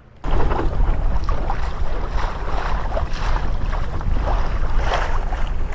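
Wind buffeting the microphone over the rush and splash of water along a sailboat's hull while it sails, with no engine running. It starts abruptly about a quarter second in.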